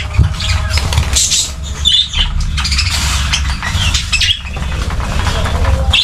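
A flock of budgerigars chirping and chattering in short high calls, with rustling and wing flutters close by over a steady low rumble.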